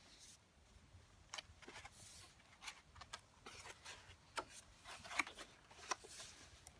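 Stiff pages of a handmade mixed-media art journal being turned by hand. The sound is a faint run of paper rustles and light taps that starts about a second and a half in.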